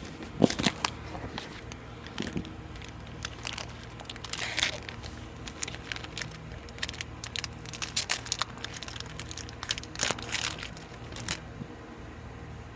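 Plastic cookie-packet wrapper crinkling and crackling in short irregular rustles as it is handled and opened by hand, the loudest rustle about half a second in.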